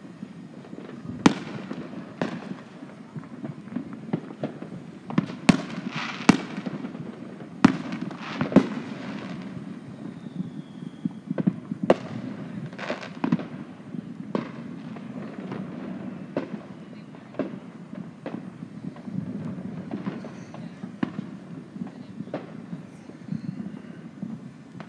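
Fireworks going off, many sharp bangs at irregular intervals, with a quick run of the loudest ones about five to nine seconds in, over a steady low hum.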